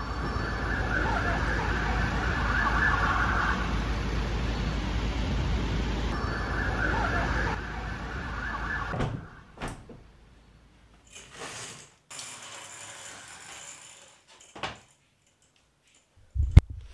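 Emergency vehicle siren wailing twice over a steady street rumble. About nine seconds in it gives way to quiet room sounds with a few soft knocks, then a single sharp thump near the end.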